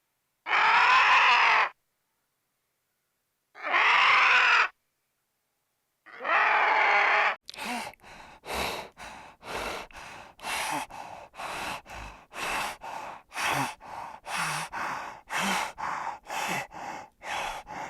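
Farm animal calls: three long, raspy calls with dead silence between them, then a rapid run of short calls at about two a second.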